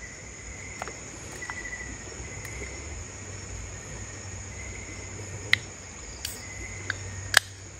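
Insects chirring steadily in a high, constant chorus, with a few sharp clicks or knocks over it, the loudest about five and a half seconds in and near the end.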